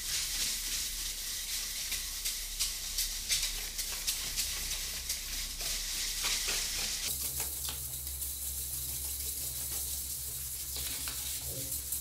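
Hand float rubbing over damp, partly set gypsum plaster on a wall: a steady gritty scraping hiss made of many quick short strokes. The surface has been wetted with a spray bottle and the top layer is being rubbed smooth.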